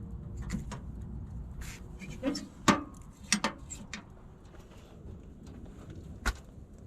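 A handful of short, sharp knocks and clicks, a cluster of four or five about a third to halfway in, the loudest among them, and one more near the end, over a steady low rumble.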